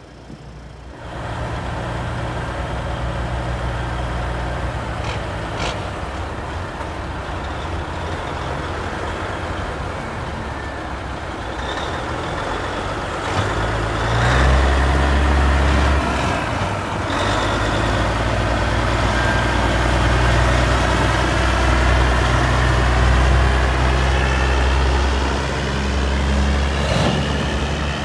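Semi truck diesel engine running, then growing much louder and deeper about halfway through as a cabover tractor pulls away under power. A few short hisses of air are heard.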